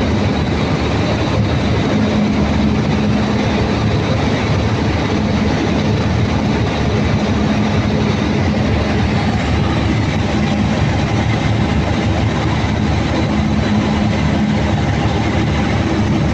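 Caterpillar C15 diesel generator engine running steadily at a constant level, with the annoying engine sound that the mechanic traces to a poorly working number 3 fuel injector.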